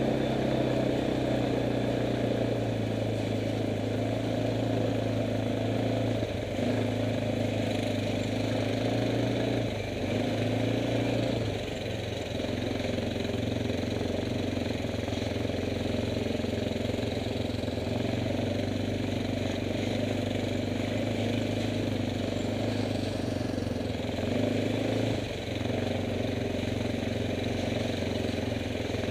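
Kymco MXU 500 quad bike's single-cylinder engine running steadily while riding, heard close up from the bike itself. Its pitch and loudness dip briefly a few times as the throttle is eased and reopened, once near the end.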